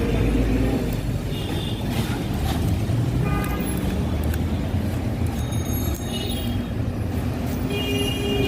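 Steady street traffic noise from passing motor vehicles, with a few short high-pitched tones about a second in, around three seconds in, and near the end.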